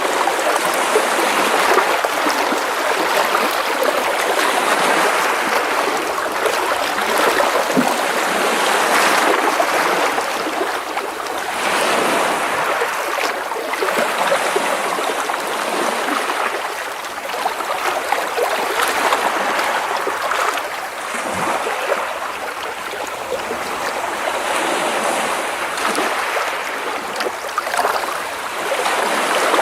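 Small sea waves splashing and washing against rocks close by, a continuous sloshing that swells and eases every few seconds.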